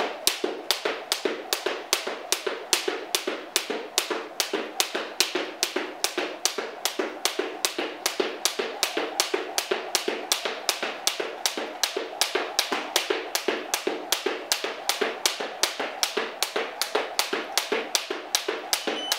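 Jump rope skipping on a hard floor: the rope slaps the floor on each turn in a steady rhythm of about two and a half taps a second.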